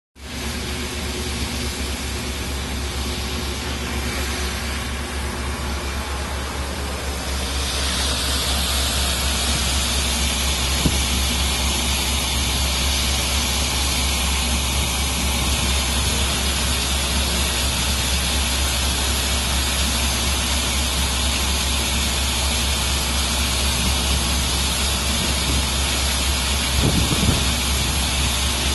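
Steady low engine rumble from a coast guard patrol boat under way, with a rushing hiss of water and wind over it that gets louder about eight seconds in.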